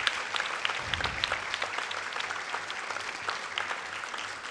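Audience applauding, a crowd of hands clapping that slowly dies down.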